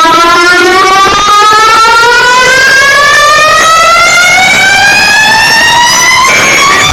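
A loud siren-like tone played through a car sound system, its pitch climbing slowly and steadily. Just before the end it breaks off into a different, busier sound.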